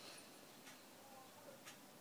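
Near silence: room tone with two faint ticks about a second apart.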